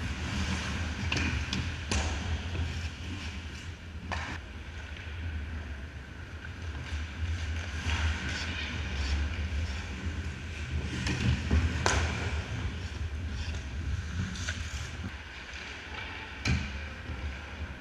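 Ice hockey play: skates scraping the ice and scattered sharp knocks of sticks and puck, one standing out near the end, over a steady low rumble and distant players' voices.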